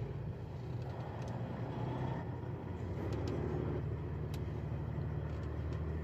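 Freightliner Coronado's Detroit Diesel Series 60 12.7-litre diesel engine running at low revs while the tractor reverses slowly, heard from inside the cab. It is a steady low rumble that grows slightly louder, with a few faint clicks.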